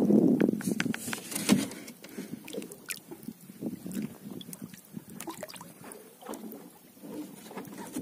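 Water sloshing and gurgling against a small boat's hull, loudest in the first second or so, with scattered light knocks and clicks.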